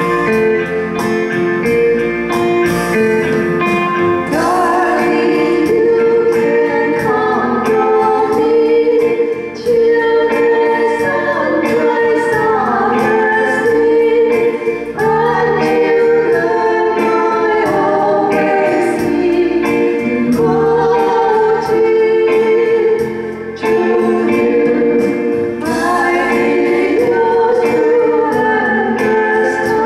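Two women singing a song together into microphones, accompanied by a Yamaha electronic keyboard. The keyboard plays alone for the first few seconds before the voices come in.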